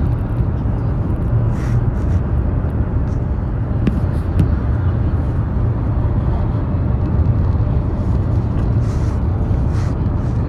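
Steady low rumble of a high-speed train running at speed, heard inside the passenger cabin. There are two faint clicks about four seconds in.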